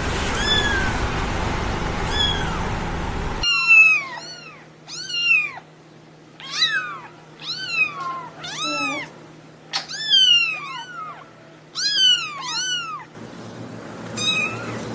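Kittens meowing in repeated high, thin calls, each rising and then falling in pitch, often two or three in quick succession. The calls are faint over a steady hiss for the first few seconds and again near the end, and loud and clear in between.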